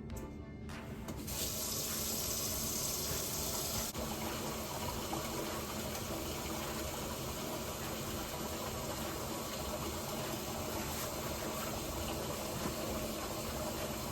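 Water running from a tap into a sink, a steady rush; it is brighter and hissier for the first few seconds, then settles to an even flow.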